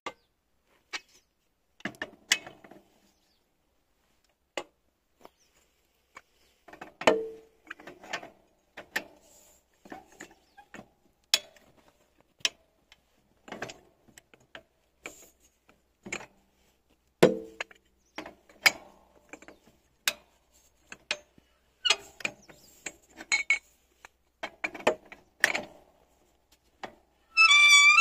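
Hand tools and metal parts of a mower being worked on: scattered sharp clicks and taps with a few heavier knocks, and a short squeak rising in pitch near the end.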